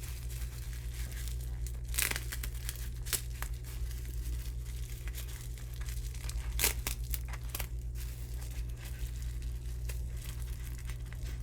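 Packing tape being torn and peeled off, with wrapping crinkling, as the resin kit parts are unwrapped by hand: irregular crackles and rips, a few louder ones about two, three and seven seconds in.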